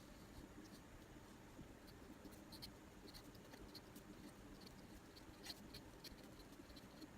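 Faint pencil scratching on paper, a scattering of short strokes, mostly in the middle stretch, over quiet room tone.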